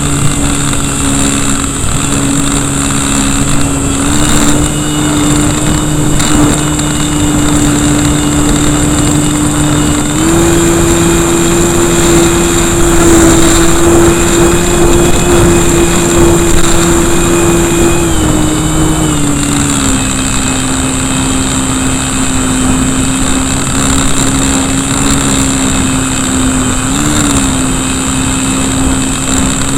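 Electric brushless motor and propeller of an RC Cessna heard up close, running with a high electric whine over a steady drone. The pitch steps up about ten seconds in, holds, then drops back about eight seconds later as the throttle is eased off. Wind rushes over the microphone throughout.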